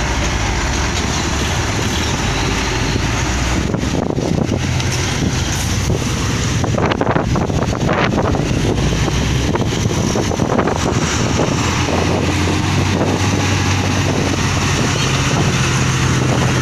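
A coach and large diesel cargo trucks driving slowly past at close range, engines running low and steady, with wind noise on the microphone.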